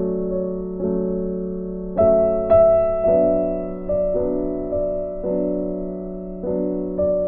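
Background piano music: slow chords struck about once a second, each ringing and fading into the next.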